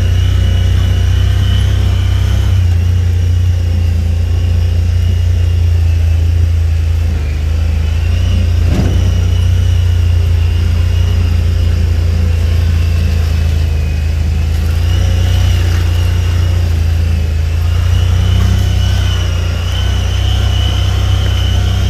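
A vehicle's engine and drivetrain run steadily as it drives along a snowy dirt track, heard as a loud low hum with a thin high whine above it. There is one brief knock about nine seconds in.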